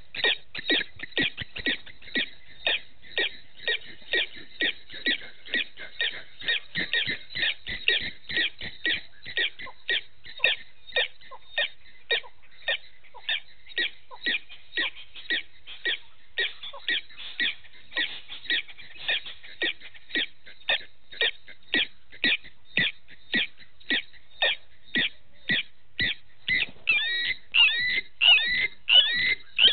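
An animal giving a short high call over and over in a steady rhythm, about two calls a second. Near the end the calls turn into quick warbling glides.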